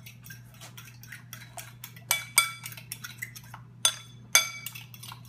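Fork beating eggs in a china bowl: a run of quick light taps, then several louder, ringing clinks of the fork against the porcelain about two seconds in and again near the end.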